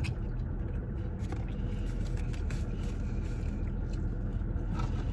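Steady low rumble of a car running, heard from inside the car's cabin, with a few faint clicks.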